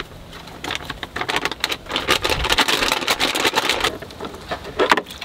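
Muddy water splashing and churning in an old bathtub as it is stirred, a dense crackle of small splashes that builds about a second in and eases off near the end, with one sharper splash just before the end.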